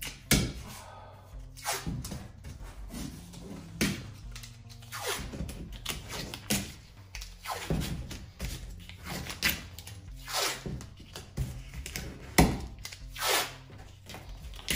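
Blue painter's tape being pulled off the roll in a dozen or so short rips and pressed by hand onto an aluminium camper shell panel, with dull thunks against the metal. Background music plays underneath.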